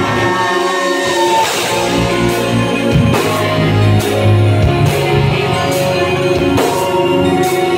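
A live rock band playing: strummed electric guitar with bass guitar and drums, the bass and drums coming in about a second in.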